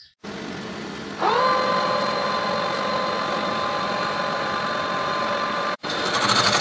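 Metal lathe starting up: about a second in, a whine rises quickly and settles into the steady running of the spindle motor and gears. Near the end, after a brief break, a louder, rougher sound follows as the tool cuts the spinning steel disc.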